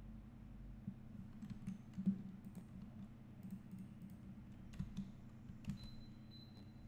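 Computer keyboard keys and mouse buttons clicking now and then, in irregular single taps over a steady low hum.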